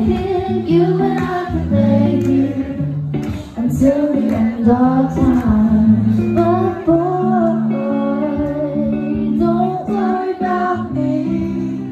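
A woman singing live into a microphone over a backing band with guitar and held bass notes, a pop song heard from the crowd.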